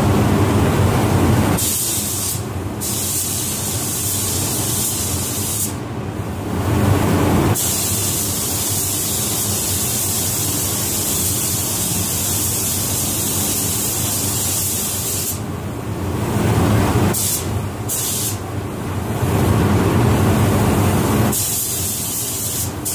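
Compressed-air spray gun hissing as clearcoat is sprayed onto a pickup's body, in several passes of a few seconds each that cut in and out, over a steady low rumble.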